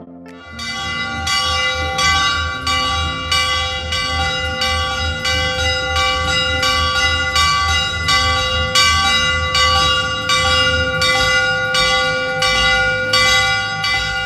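Large hanging metal temple bell rung by hand, struck over and over about twice a second so that each stroke rings into the next in a continuous clanging peal.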